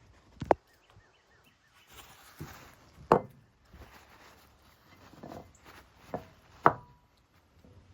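Microtech out-the-front automatic knife being fired and retracted: three loud, sharp snaps of the blade locking, a few seconds apart, with a softer click just before the last and brief sliding between them.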